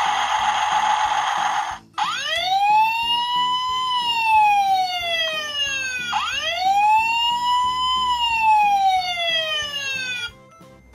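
Toy fire engine's electronic siren wailing through its small speaker: two slow rise-and-fall cycles that cut off abruptly near the end. It is preceded by about two seconds of loud hiss. Quiet background music plays underneath.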